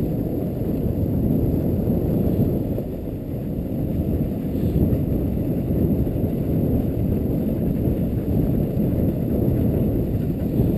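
Steady, muffled rushing rumble of a dog sled moving over snow, the runners sliding with no distinct knocks or voices.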